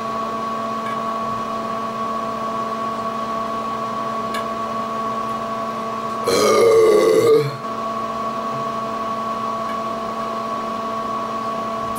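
A man's loud burp about six seconds in, lasting about a second, after gulping malt liquor. Under it runs a steady droning hum.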